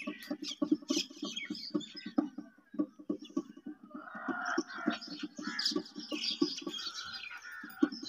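Chickens clucking in a quick run of short low clucks, with higher bird calls and chirps joining about halfway through.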